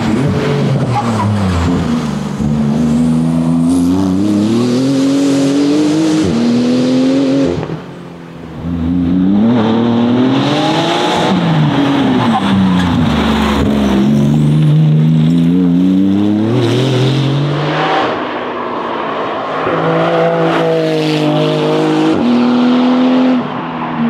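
Porsche 911 GT2 RS's twin-turbo flat-six driven hard, its revs climbing and dropping again and again through gear changes and lifts. There is a short drop in loudness about eight seconds in.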